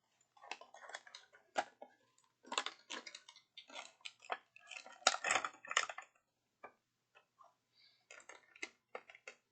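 Packaging and plastic pieces being handled: a dense run of irregular clicks, clatters and crinkles that thins out to scattered single clicks after about six seconds.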